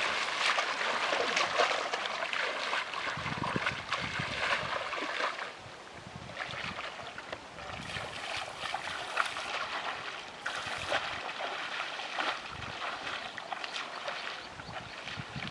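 Shallow muddy water splashing and sloshing as people wade through it and stir it with their feet and hands, louder in the first five seconds or so.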